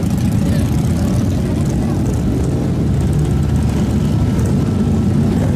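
Engine of a custom Tron-style lightcycle motorcycle running as it rolls slowly, a steady low rumble.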